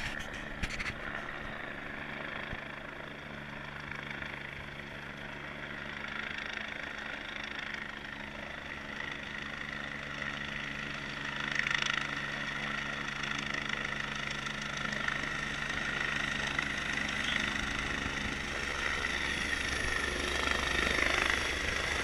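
Helicopter coming in to land, its steady rotor and engine sound growing gradually louder as it nears and descends.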